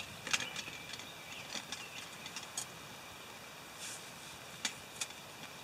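Light rain falling, a soft steady hiss, with a handful of scattered sharp ticks and pops through it.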